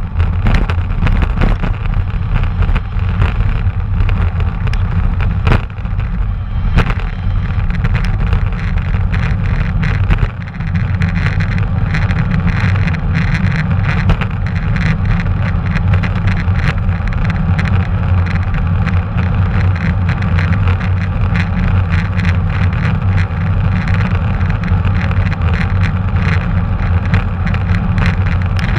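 Wind rumble and rolling road noise picked up by a GoPro action camera on a moving bicycle, with frequent small clicks and rattles throughout.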